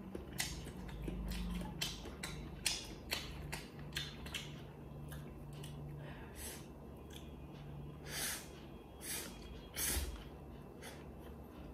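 Close-up mouth sounds of a person eating stir-fried instant noodles: soft chewing with light clicks and smacks, then several short, louder slurps of noodles near the end.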